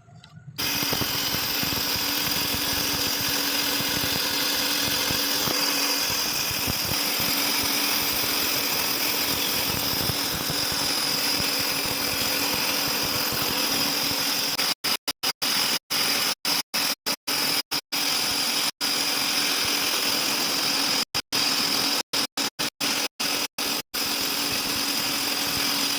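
A power tool or small machine running steadily, a loud even whir with a high whine over it. Past the middle, the sound cuts out abruptly to silence many times for a split second each.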